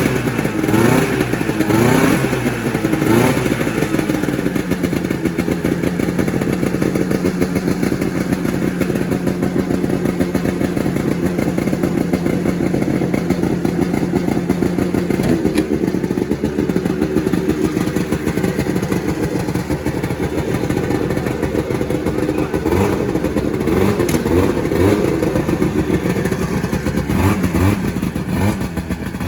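Vintage snowmobile's small two-stroke engine running. It revs up and down for the first few seconds, holds a steady speed for about ten seconds, then revs and wavers again near the end.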